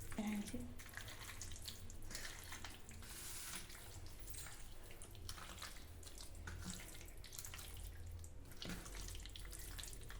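Hands mixing raw country chicken pieces in a wet curd and chilli-powder marinade: irregular squelching and sticky clicks.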